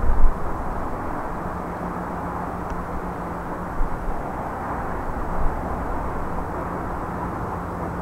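Distant C&O H-6 No. 1309, a 2-6-6-2 articulated steam locomotive, working hard with its train; the exhaust blends into a steady far-off roar.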